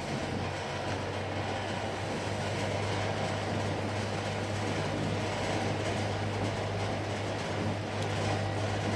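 Vintage 1960s Hunter FL20 box fan running steadily: a constant motor hum under the even rush of air from the blades.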